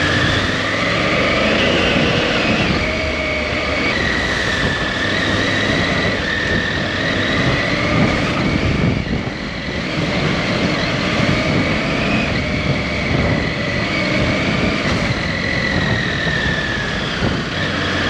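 Motorcycle engine running steadily while riding along, mixed with a dense, even rush of wind and road noise.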